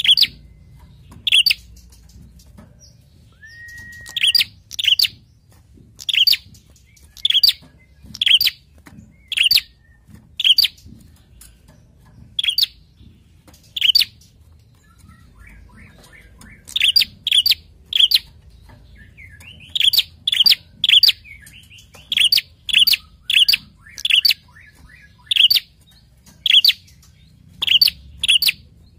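Caged prenjak calling: loud, sharp chirps repeated about once a second, some in quick pairs, with a brief held whistle about four seconds in.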